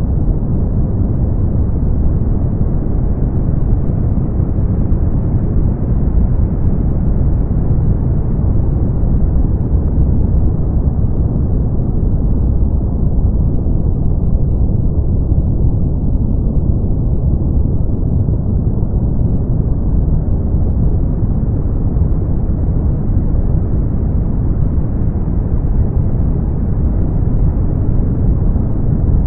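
Steady brown noise: an even, deep rushing hiss with most of its weight in the bass and little treble, its top end dulling slightly midway.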